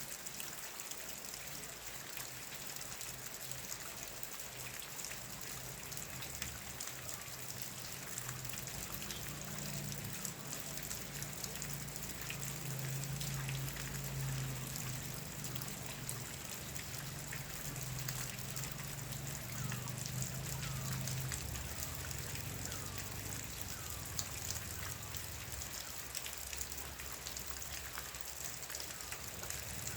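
Steady rain falling, with many separate drops pattering and dripping on a surface. A low hum swells and fades in the middle, and a faint short chirp repeats about once a second for a while.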